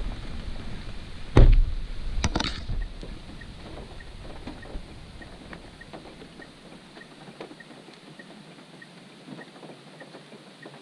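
Two heavy thumps about a second and a half and two seconds in, then a low steady background with faint, evenly spaced ticks.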